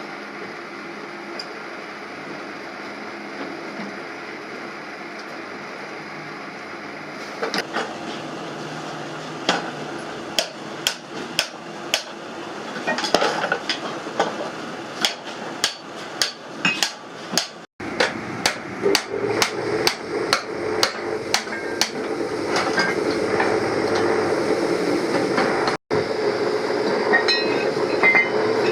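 Repeated hammer blows, a long run of sharp strikes at about two a second, over steady background noise.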